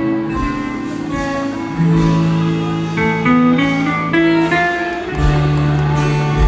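Live acoustic guitar music in the style of Brazilian música caipira, picked notes over long held low notes, with no singing.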